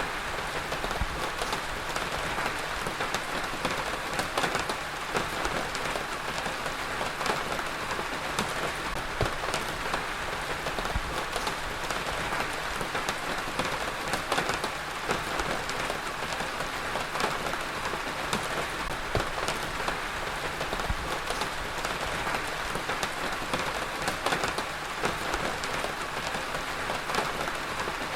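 Heavy rain falling steadily, a dense even hiss with many individual drops pattering on a surface.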